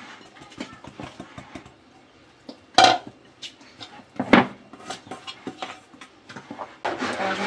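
Spoon stirring cake batter in a bowl, clinking and scraping against the bowl, with two louder knocks about three and four and a half seconds in.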